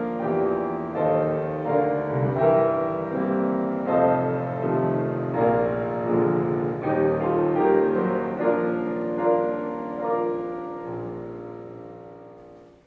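Solo piano playing a slow piece with sustained chords, fading out near the end.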